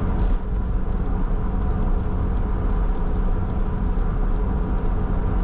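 Lotus Esprit V8 running at a steady pace, its engine and road rumble heard from inside the cabin.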